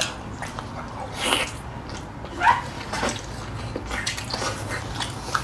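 Close mouth sounds of a man eating tender sauced lamb-leg meat off the bone: wet chewing, sucking and slurping, with a short vocal noise about two and a half seconds in.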